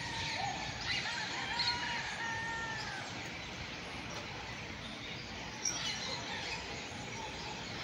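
Wild birds chirping and calling: clusters of short high chirps in the first second or so and again around six seconds, with a few held whistled notes early on, over steady outdoor background hiss.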